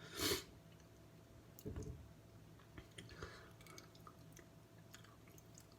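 Faint chewing and wet mouth sounds of a person eating a superhot chocolate Jigsaw chili pod, with one short, louder burst of noise about a quarter second in and soft clicks later on.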